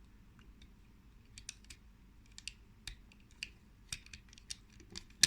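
Small hard-plastic toy parts of a vintage Clamp Champ claw weapon clicking and tapping as they are handled. After about a second of quiet there are a dozen or so short, irregular clicks, some louder than others.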